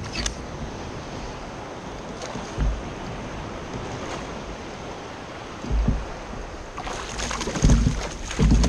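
Wind on the microphone and sea water lapping around a kayak, with a few dull low thumps. From about seven seconds in comes splashing, as a hooked fish thrashes at the surface beside the kayak.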